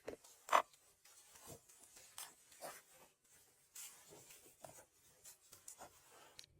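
Irregular short scrapes and rubs, a stroke every half second or so, with one sharper, louder knock about half a second in.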